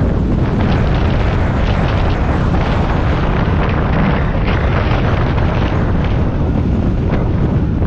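Loud, steady rumble of a moving vehicle, with wind buffeting the microphone in short gusts.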